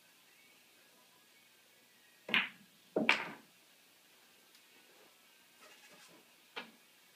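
A pool shot on a billiard table: a sharp click of the cue tip on the cue ball about two seconds in, then a louder clack of balls colliding about a second later with a short rattle. A few faint clicks follow near the end.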